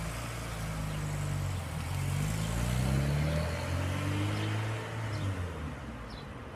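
1981 Lancia Beta Zagato's twin-cam four-cylinder engine as the car drives off: a quiet, steady note that rises in pitch as it accelerates about two seconds in, then drops back and fades as the car moves away near the end.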